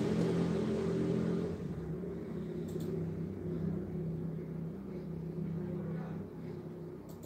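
Low engine hum, steady in pitch, fading gradually.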